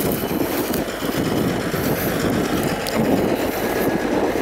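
CAT Challenger MT865C rubber-tracked tractor working under load, pulling a Väderstad TopDown 900 cultivator whose discs and tines cut through the stubble soil. Together they make a steady mechanical noise.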